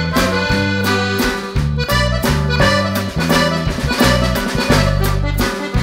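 Background music with a steady beat of about three strokes a second over held bass notes and a melody.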